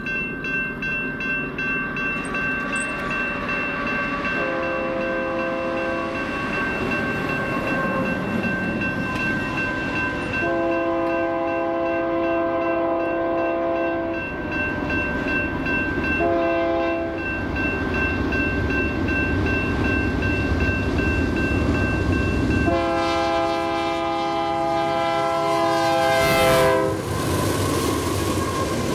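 A railroad crossing bell rings steadily as a Union Pacific freight train's diesel locomotive approaches, blowing its horn in the grade-crossing pattern: long, long, short, long. The last long blast dips in pitch as the lead locomotive reaches the crossing. The rumble of the engines and cars grows through the second half, peaking as the locomotive and tank cars pass.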